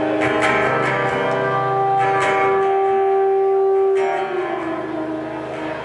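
Live indie folk band playing an instrumental passage with no singing: acoustic guitar chords struck over long held notes, with fresh chords about two seconds in and again at about four seconds, after which the held notes slide down and the sound thins out.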